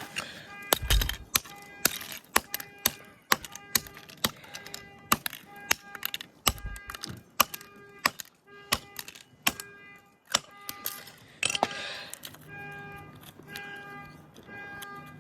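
Sharp, irregular blows, one or two a second, striking a bent, blown speaker driver as it is smashed apart. The blows stop about twelve seconds in, leaving a steady low hum and a song playing faintly.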